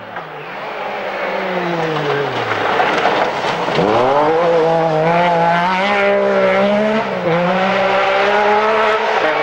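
MG Metro 6R4 rally car's V6 engine at full race revs: the pitch falls as it slows, then climbs sharply about four seconds in as it accelerates past, with brief dips at the gear changes.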